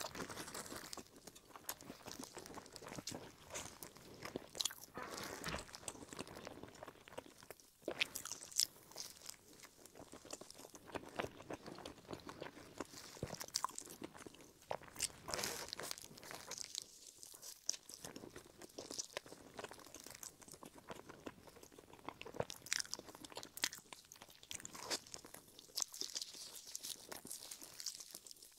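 Close-miked eating: biting and chewing a tiger-skin purple rice bread roll, a steady irregular run of small crackly mouth clicks and soft chewing sounds.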